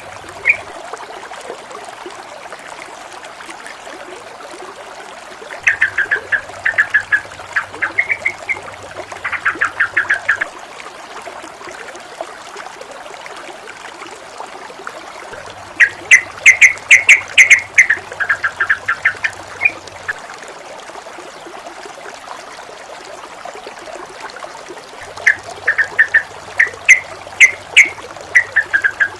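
Flowing water trickling steadily, with three bursts of quick chattering bird calls of a yellow-vented bulbul (trucukan), each a few seconds long: about six seconds in, midway, and near the end. A faint low hum comes in with each burst.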